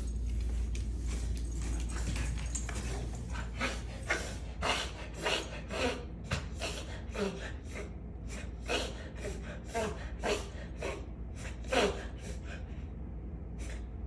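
A pet coughing over and over in short bouts, about a dozen quick coughs starting a few seconds in, some with a hoarse, voiced edge.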